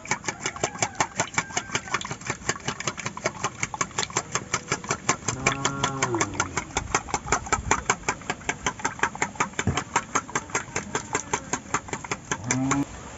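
Eggs being beaten with a spoon in a stainless steel bowl: the spoon clinks against the steel about five times a second in a steady rhythm.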